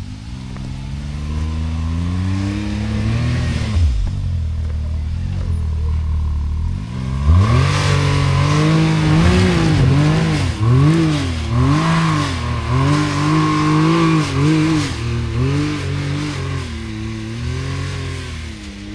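Side-by-side UTV engine revving: pitch climbs over the first few seconds, holds, then rises and falls in repeated throttle blips about once a second, typical of working the throttle to crawl over a trail obstacle in four-wheel drive.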